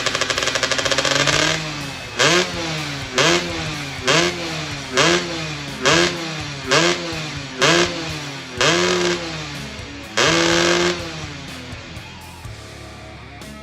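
Two-stroke Yamaha F1ZR motorcycle engine, built up to 125 cc, being revved: a steady high run, then about nine sharp throttle blips roughly a second apart, each falling back in pitch, the last held for about a second before it settles down. This is the fresh engine's running-in after assembly.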